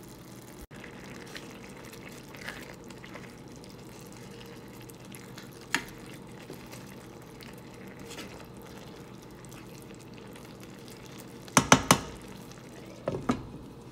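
Creamed spinach simmering in a nonstick skillet while a wooden spoon stirs it: a steady soft bubbling and wet scraping. Sharp knocks of the spoon against the pan come about six seconds in and in a loud cluster near the end.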